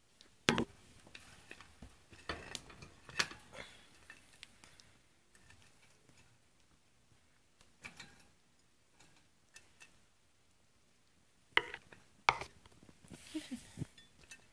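Scattered light clicks and ticks with a few sharper knocks, from sugar gliders scrabbling over a ceramic saucer and the cage floor as they eat mango. A brief scuffle comes near the end.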